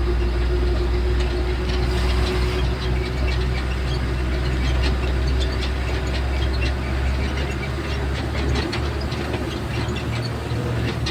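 A motor vehicle's engine running steadily with a strong low rumble, a steady hum and light rattling.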